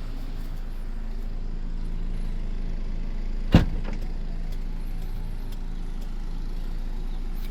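A GMC Terrain idling steadily, with a single loud thump of a car door about three and a half seconds in.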